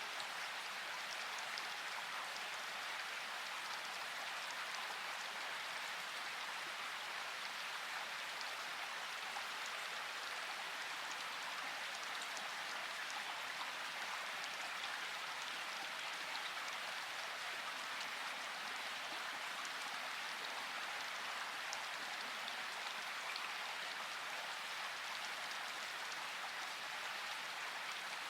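Steady rainfall, with a dense patter of individual raindrops over an even hiss.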